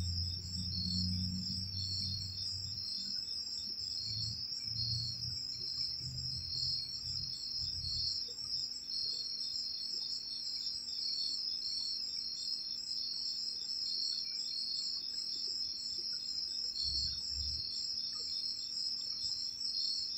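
Steady insect chorus: a continuous high trill with a second, pulsing trill just below it. Low music-like bass fades out over the first several seconds, and a short low thump sounds a few seconds before the end.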